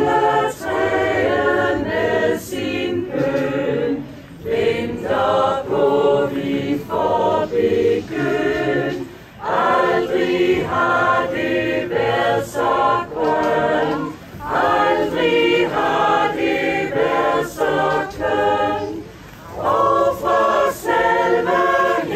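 Mixed choir of men and women singing a cappella in phrases broken by short pauses.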